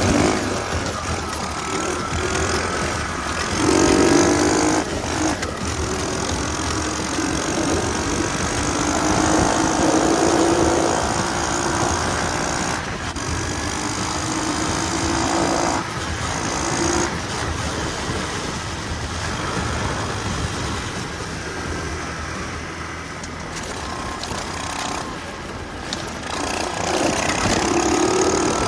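Small minibike engine running hard, its pitch climbing and settling again several times as it accelerates, over a steady rushing noise.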